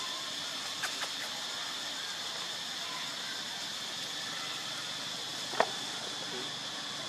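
Steady high-pitched buzz of a forest insect chorus, with a couple of faint clicks about a second in and one short sharp snap about five and a half seconds in.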